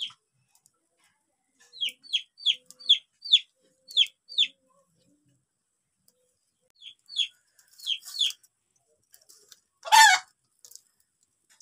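Birds calling: a quick run of short, falling high chirps, a few more a little later, then one loud, brief squawk about ten seconds in.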